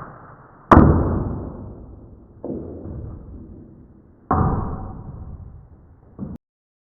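Tokyo Marui L96AWS spring-powered airsoft sniper rifle firing a shot about two-thirds of a second in: a sharp crack, the loudest sound, that rings away over a second. Two more knocks follow, a weaker one around two and a half seconds in and a strong one past four seconds, each fading away. The sound cuts off abruptly near the end.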